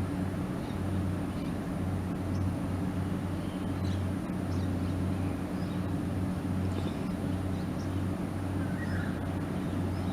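Steady low hum and rumble of urban background noise, with a few faint, brief high chirps over it.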